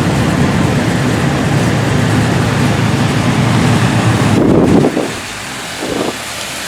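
Classic car engine running close by with a deep exhaust rumble, then fading off about five seconds in as the car moves on.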